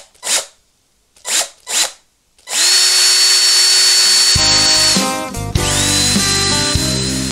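Power drill with a screwdriver bit: four short trigger blips, then a run-up with a rising whine, held at speed for about two and a half seconds. It stops and spins up again near the end. Music comes in about halfway through.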